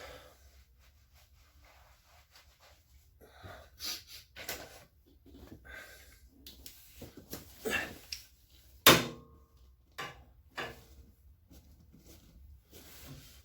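Scattered knocks, clicks and rustles of hands handling parts of a partly reassembled washing machine, with one loud knock about nine seconds in that rings briefly.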